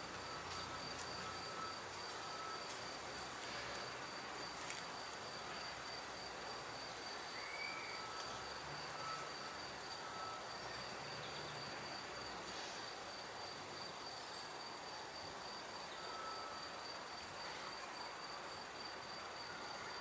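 An insect trilling steadily at a high pitch, in fine, even pulses, over a constant background noise.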